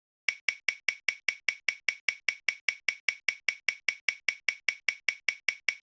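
Spinning prize-wheel ticking sound effect: sharp, evenly spaced clicks about five a second, each with a short bright ring.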